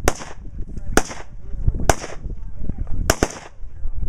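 Rifle shots from a firing line of several shooters, about one a second, with two almost together about three seconds in, five in all. Each shot is a sharp crack with a short echo trailing after it.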